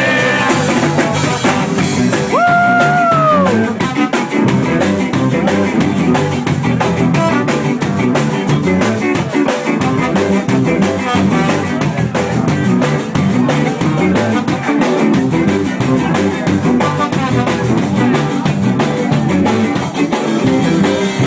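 Live rock band playing loud: a drum kit keeping a steady beat under guitars. About two seconds in a note is held for about a second and slides down as it ends.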